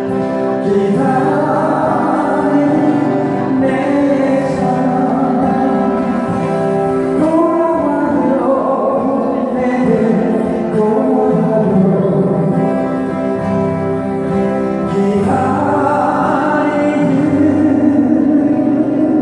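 Live acoustic-guitar band playing a Korean song, with several voices singing into microphones over the strummed guitars.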